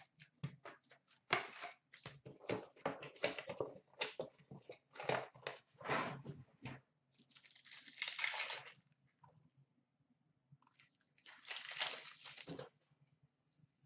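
Quick rustling and clicking of a cardboard card box and packs being handled, then two stretches of crinkling and tearing, about seven seconds in and again near the end, as a hockey card pack wrapper is ripped open.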